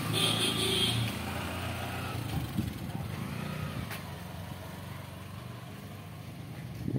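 Bajaj Discover motorcycle engine running as the bike rides away, its sound fading steadily into the distance.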